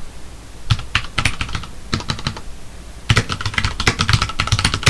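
Typing on a computer keyboard: a few scattered keystrokes, then a fast, continuous run of typing from about three seconds in.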